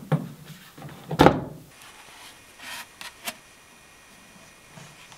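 Plastic scooter top-box lid being lowered and handled: a solid knock about a second in as the lid comes down, then a few lighter plastic clicks from the lid and latch.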